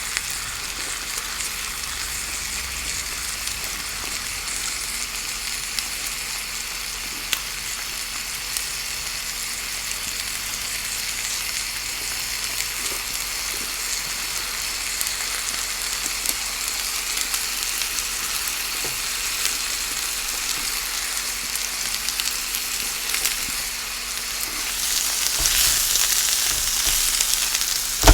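Tofu frying in hot oil: a steady sizzle with fine crackles, growing louder near the end.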